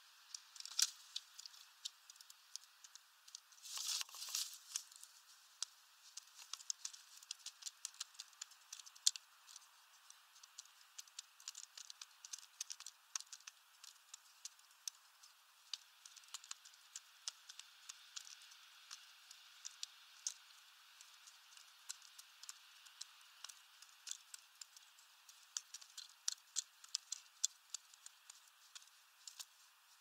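Rock pigeons pecking at black sunflower seeds in a feeder tray: a steady run of quick, irregular clicks and rattles of beaks striking seeds and hulls, with a brief louder rustle about four seconds in.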